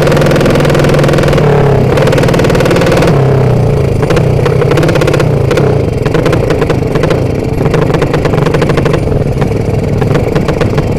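Modified drag-style 'sleep engine' motorcycle running loud under the rider at speed. The engine holds a steady note for about three seconds, then its pitch drops and the running turns rough and choppy as the throttle is worked.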